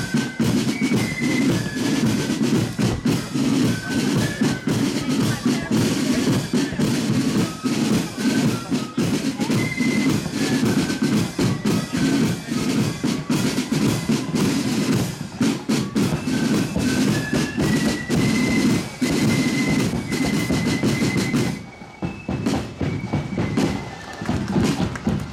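Marching band playing as it parades: a rapid rattle of side drums over bass drum, with a high melody on top. Near the end the drumming drops away briefly, then comes back.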